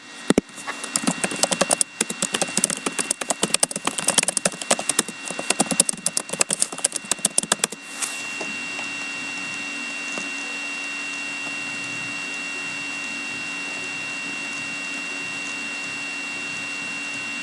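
Dense, irregular crackling and clicking for about eight seconds, stopping abruptly. A steady electrical hum with a thin high whine follows.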